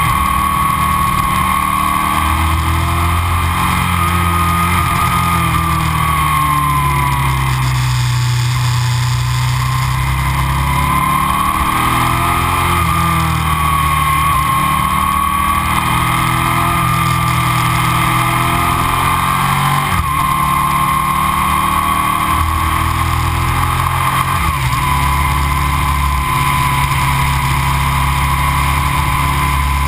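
Aprilia RSV 1000's 60-degree V-twin running through Arrow aftermarket silencers, heard from on board while riding. Its note rises and falls over several seconds at a time as the rider opens and closes the throttle, with two brief sharp breaks in the second half.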